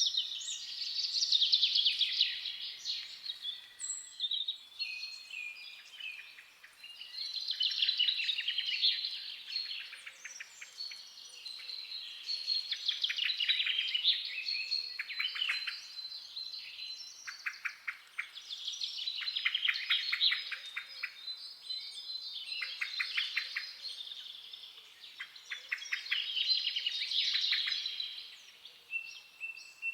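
Forest songbirds singing: phrases of rapid, trilled notes lasting a second or two, repeating every few seconds, with several songs overlapping at times.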